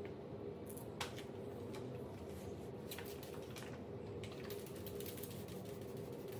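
Scattered light clicks and rustles of handling as a polishing disc is pressed onto a drill attachment's backing pad and the tool and a spray bottle are handled, over a steady low hum. One sharper click comes about a second in.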